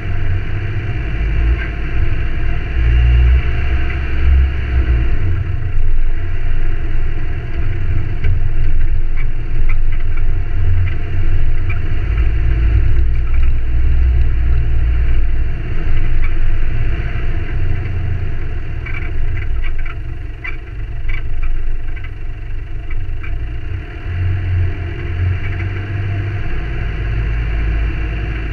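Ford Ranger four-wheel drive driving along a rough dirt track: steady engine and tyre rumble that swells and eases, with a few light ticks and rattles about two-thirds of the way through.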